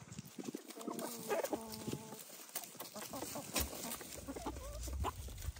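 Domestic hens clucking as a flock: a cluster of short clucks about a second in and softer calls later, with light taps as they peck at a seed block.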